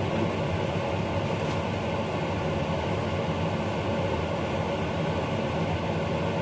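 Steady mechanical hum with a rush of air from a running fan, even throughout with a few faint steady tones in it.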